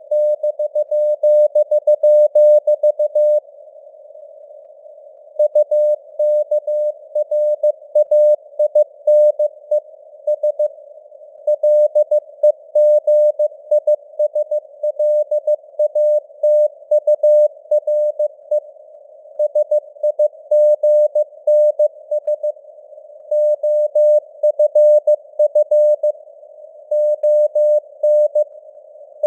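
Morse code (CW) keyed at 15 words per minute as a single mid-pitched beep tone, dots and dashes in groups with short pauses between words, over a narrow band of simulated radio-receiver hiss.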